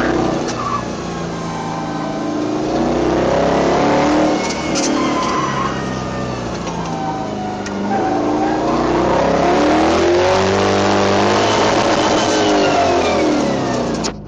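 1970 Chevy pickup's engine revving up and falling back again and again under hard acceleration and braking, heard from inside the cab, with tires squealing at times through the turns.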